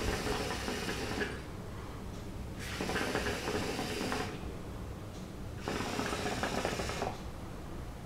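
Hookah water bubbling through three draws on the hose, each a bit over a second long, with short pauses between.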